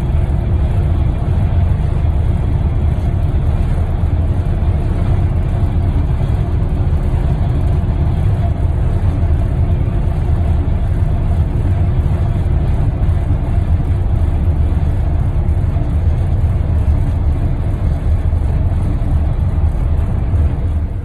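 Semi truck's diesel engine and road noise inside the cab at highway speed: a steady, loud low drone with a few steady tones above it.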